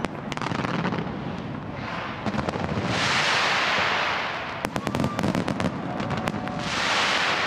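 Fireworks going off: a rapid, uneven run of sharp bangs and crackles, with two spells of dense hiss, about three seconds in and near the end.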